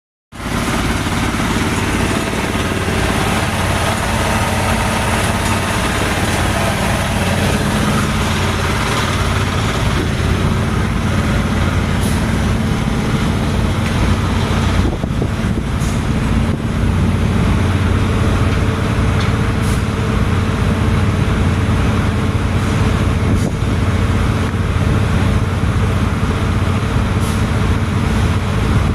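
Large diesel engine running steadily at a constant speed, a loud even drone with a low hum, with a few faint clicks over it.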